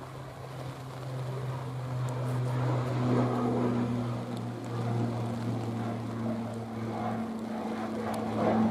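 ATR 42 twin-turboprop airliner climbing out after takeoff: a steady low propeller drone that builds over the first few seconds and holds.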